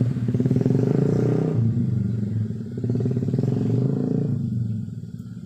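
A small motorcycle engine running close by with a fast, even pulse, fading away about four and a half seconds in.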